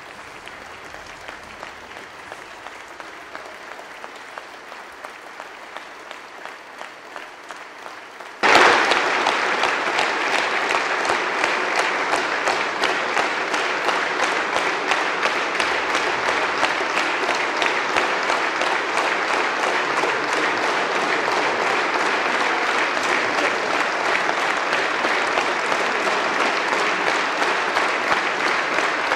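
A large audience applauding at length in a parliament chamber, a dense sustained clapping. It is fainter for about the first eight seconds, then abruptly becomes much louder and stays that way.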